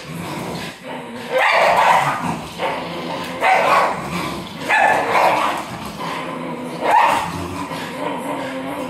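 French bulldog and miniature schnauzer growling in play as they tug on a slipper, with about four loud barks breaking in.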